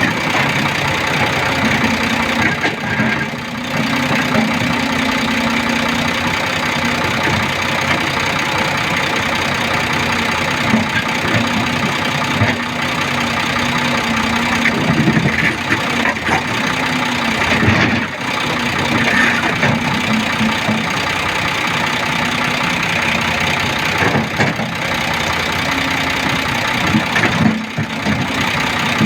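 Volvo backhoe loader's diesel engine running steadily, with a few sudden clunks over it.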